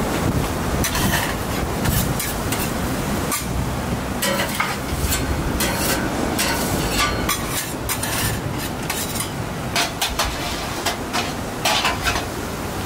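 Metal spatula scraping and clacking on a hot flat-iron griddle, in short irregular strokes, over a steady sizzle of okonomiyaki frying.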